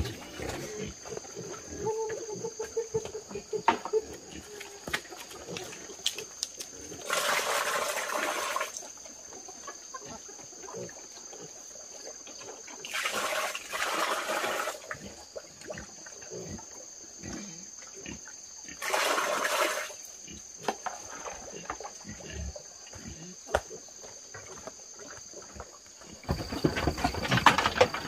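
Piglets squealing in three harsh bursts of about a second and a half each, several seconds apart, then a longer, louder stretch near the end. A steady high-pitched drone runs underneath.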